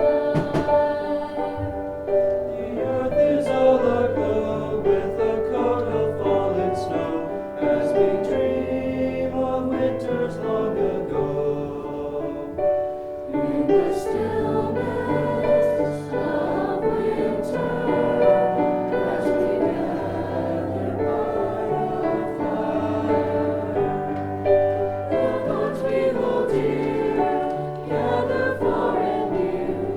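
High school choir singing a Christmas piece in held chords over sustained low notes.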